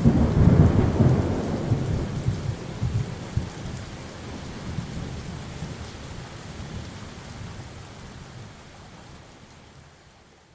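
A thunderstorm: a roll of thunder, loudest at the start, rumbles on and slowly fades over about ten seconds, with steady rain falling throughout.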